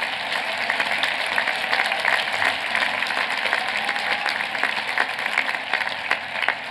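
Audience applauding: a dense, steady clatter of many hands clapping, easing slightly near the end.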